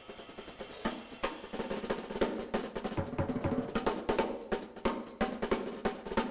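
Soundtrack music: a drum kit played alone in a busy, irregular run of snare and bass drum hits, with rolls.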